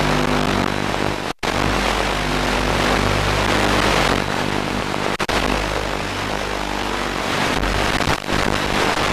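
Background music: a dense track with sustained low chords that change every second or two. It drops out for a split second twice and stops abruptly near the end.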